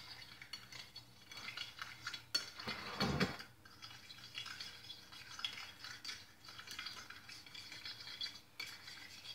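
A utensil stirring marinade in a glass baking dish, with faint scraping and light clinks against the glass and one louder knock about three seconds in.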